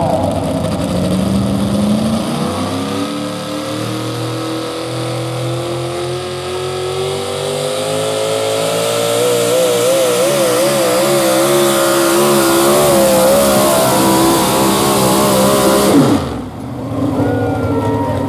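Supercharged engine of a modified 4x4 pulling truck at full throttle under the load of a weight-transfer sled: the note climbs steadily, then wavers quickly up and down through the second half of the pull. About 16 s in the engine is cut off with a falling note, then runs low.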